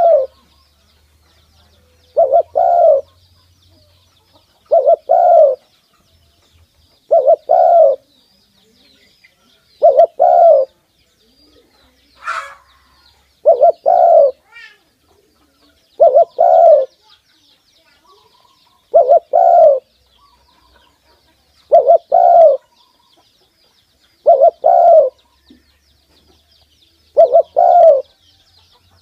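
Spotted dove cooing close to the microphone: a short, doubled coo phrase repeated evenly about every two and a half to three seconds, around ten times. Faint high chirping of small birds runs underneath.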